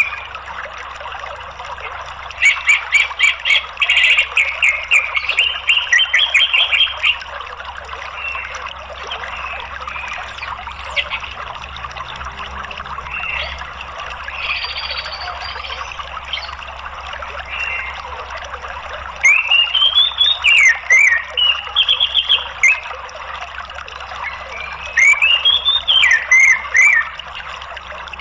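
Orange-headed thrush song in three bouts of rapid, sharp notes and rising and falling whistled phrases, over a steady sound of running water.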